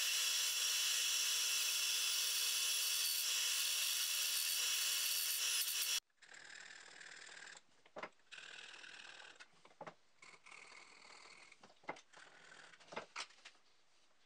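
Bandsaw running and cutting a plywood piece, a steady noise with a hum of steady tones that cuts off abruptly about six seconds in. After that come quieter hand-work sounds: soft rubbing and several sharp clicks and knocks as the wooden piece is worked in a bench vise.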